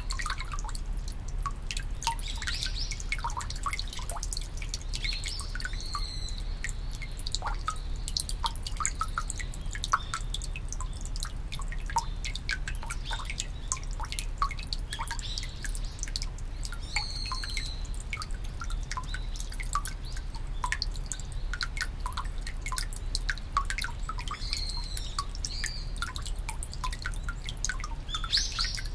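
Water trickling from a bamboo spout into a stone purification basin at a shrine fountain, a constant patter of droplet plinks. A small bird gives short chirps now and then, about six times.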